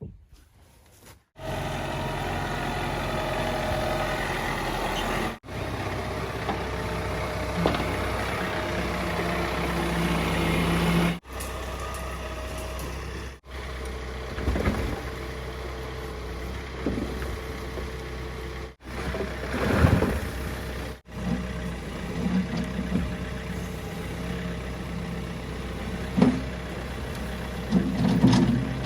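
An engine running steadily, in several short edited clips, with a few knocks over it.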